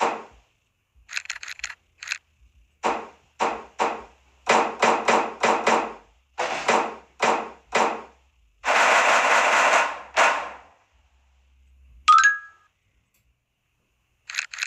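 Cartoon sound effects of a metal locker door being yanked and rattled: a run of short, sharp clanks and rattles, a longer clatter about nine seconds in, then a short ding about twelve seconds in.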